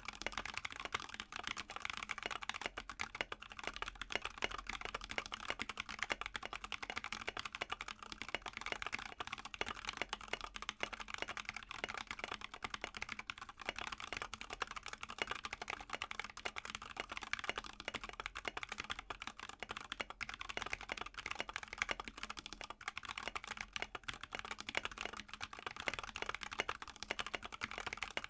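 Continuous fast typing on a mechanical keyboard fitted with stock, unlubed tactile Panda switches (the Holy Panda V2 / Glorious Panda type), a dense stream of keystroke clacks.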